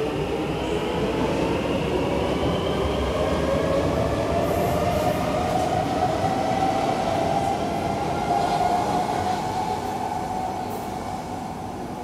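Kawasaki–Kinki Sharyo C151 metro train passing through the station with wheel-on-rail noise and a traction-motor whine that rises slowly in pitch. The sound fades near the end as the train clears the platform.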